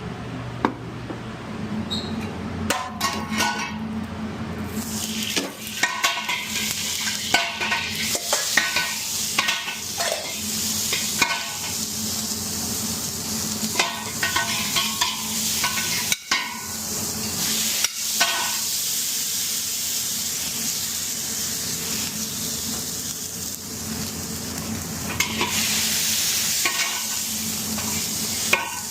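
Food frying in a pan, the sizzle starting about five seconds in, while a metal utensil stirs it, clinking and scraping against the pan again and again. A steady low hum runs underneath.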